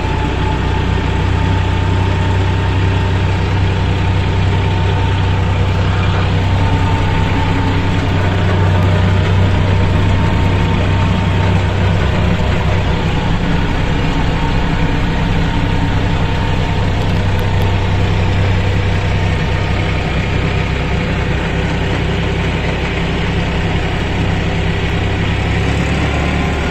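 Kubota tractor's diesel engine running at a steady speed as the tractor drives along a road, one even low engine note.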